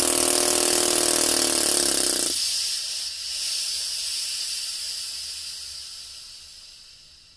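Small compressed-air motor running on air from a homemade beer-can tank, with a hiss of air, then stopping abruptly about two seconds in; the air hiss carries on and fades away as the tank runs out of pressure.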